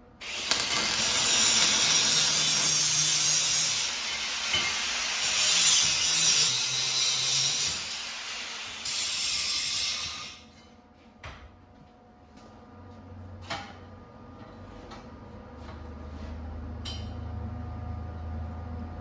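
Abrasive power tool cutting steel angle iron: a loud, harsh grinding noise for about ten seconds that swells and eases as the cut goes on, then stops. Scattered clicks and a low hum follow.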